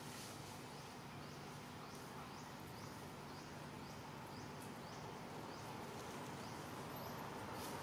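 Outdoor ambience with a short, high chirp repeated evenly about twice a second, over a faint steady low hum.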